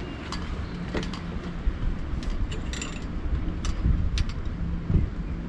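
Scattered metal clinks and knocks, with a couple of heavier thuds, as the self-steering windvane's pendulum unit is handled and fitted onto its transom bracket, against a low steady rumble.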